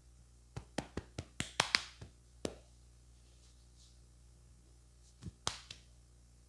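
A barber's hands slapping and tapping during a head massage: a quick run of about eight sharp slaps in the first two and a half seconds, then two more near the end.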